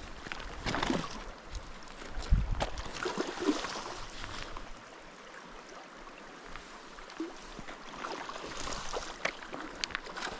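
River water splashing and sloshing, with a few sharp clicks and knocks; the splashing is strongest in the first few seconds.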